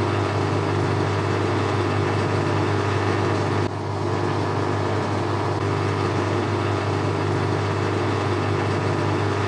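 Boxford lathe running steadily with a constant motor and drive hum, its spindle turning the ER32 collet holder and test bar for a dial-indicator runout check. The level dips briefly a little under four seconds in.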